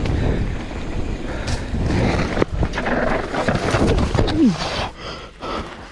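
Mountain bike riding fast over a rough dirt trail: a steady rumble with dense rattling and knocking from the tyres and bike. It quietens about five seconds in.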